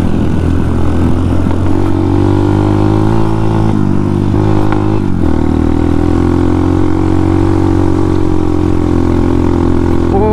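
Motorcycle engine running steadily under load as the bike climbs a steep hill, with a brief dip in the engine note about four seconds in before it pulls on again.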